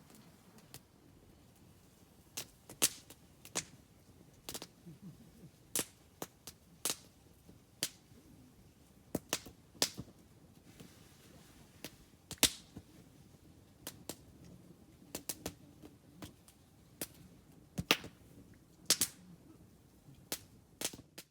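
Wood campfire crackling: sharp, irregular pops and snaps from the burning wood, one or two a second at uneven intervals, over a faint low rush of the flames.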